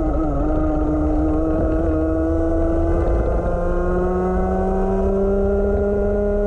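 Rotax 125 Max Evo single-cylinder two-stroke kart engine at full throttle, heard onboard. Its pitch dips briefly at the start as the kart comes through a corner, then rises steadily as the kart accelerates, over low wind rumble on the microphone.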